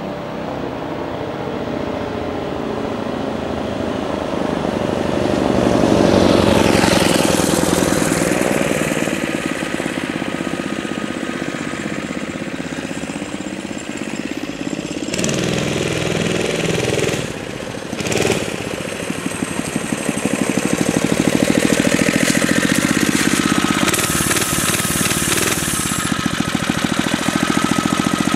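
Falcon mini bike's small 4 hp Tecumseh single-cylinder engine riding past, loudest about six seconds in and falling in pitch as it heads off down the street. From about twenty seconds in it runs close by with a steady, even pulsing beat.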